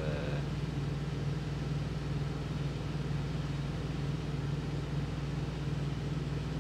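Diesel engine idling, a steady low drone with a faint even pulse, heard from inside a semi-truck's sleeper cab.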